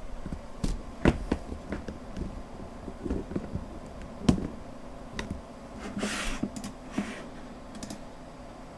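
Scattered sharp computer mouse clicks and light taps over a faint steady low hum, with a short hiss about six seconds in.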